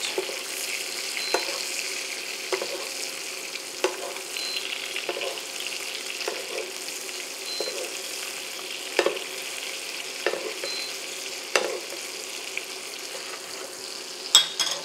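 Pigeon breasts sizzling steadily in melted butter in a frying pan as they are basted, with a spoon clinking against the pan about every second or so.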